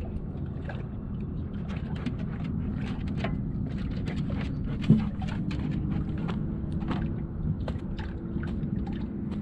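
Small waves slapping and lapping against the hull of a small fishing boat drifting in the wind, with irregular sharp splashes and a single loud knock about five seconds in.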